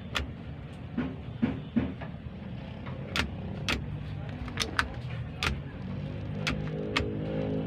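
Sharp, irregular clicks and ticks from handling the truck's switches and wiring, over a steady low hum.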